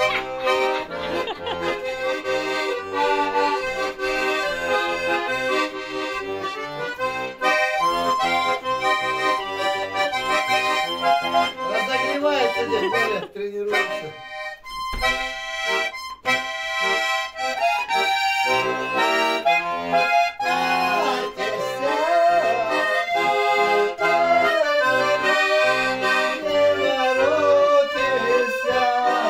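A small button accordion being played: a tune over pulsing bass and chords. The playing breaks off briefly about halfway, then starts again.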